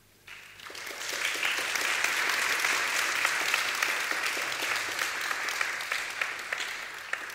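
Audience applauding, starting just after the thank-you, building to full strength within about a second and tapering off slightly near the end.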